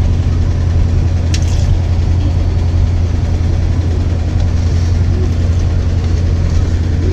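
A steady low mechanical hum, like a motor or appliance running, with a faint small click about one and a half seconds in.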